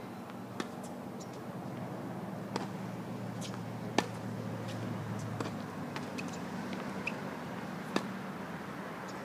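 Tennis ball being struck by a racket and bouncing on a hard court: a few sharp pops, the loudest about four seconds in and another near the end, over a steady low hum.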